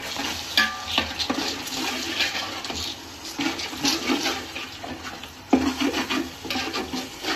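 A metal ladle stirring and scraping a wet tomato-and-curd biryani masala around a large metal pot, the masala sizzling and bubbling as it is turned, with a louder run of scraping about five and a half seconds in.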